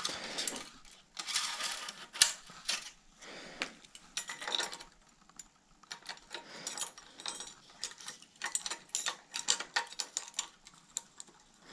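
Small irregular clicks, ticks and rustles of hands handling a bicycle handlebar and stem while threading an electronic gear-shift (Di2) wire through it.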